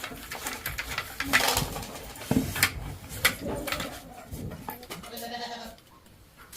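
An animal bleating once, wavering, about five seconds in, among scattered knocks and clatter.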